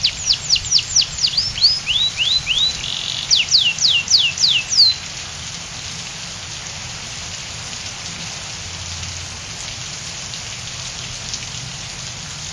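Domestic canary singing a fast run of whistled notes, each sliding down in pitch, several a second, until the song stops about five seconds in. Steady rain hiss runs underneath and carries on after the song ends.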